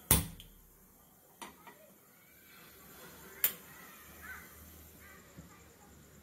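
Gas stove burner knob turned to light the burner: one sharp, loud click at the start, then a few fainter clicks and knocks. Once the burner is lit, a faint low hum runs through the second half.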